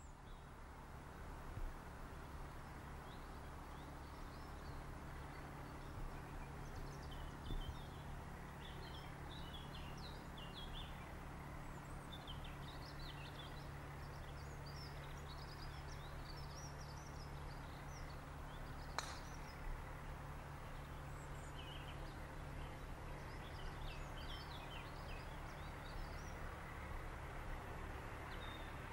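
Small birds chirping and singing over a steady low hum, with a single sharp click about two-thirds of the way through.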